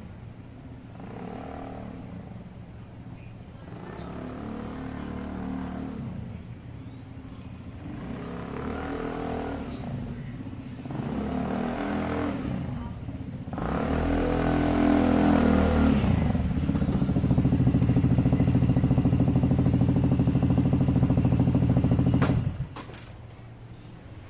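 Royal Alloy GP180 scooter engine running, swelling and easing in pulses about every two seconds, then holding a louder, steady note before cutting off abruptly near the end.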